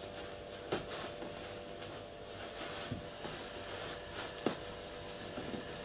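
Faint handling sounds of hands twisting craft wire around a wire ring and working the stuffed fabric body, a few soft clicks against a steady electrical hum of the room.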